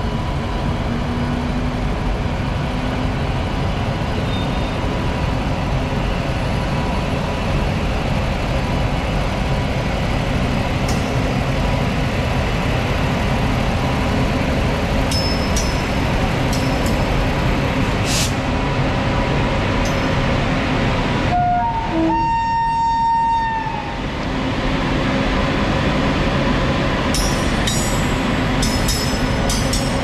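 Indian Railways WAG-9 electric locomotive and its freight wagons rolling slowly past: a steady rumble of wheels on rail with scattered sharp clicks. A short, steady horn note sounds about 22 seconds in.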